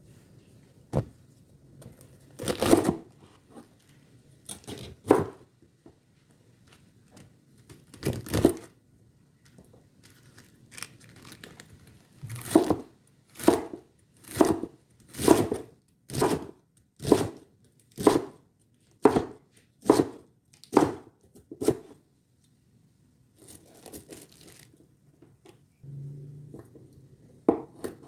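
Kitchen knife cutting food on a cutting board: a few separate strokes, then a steady run of slicing strokes about one a second.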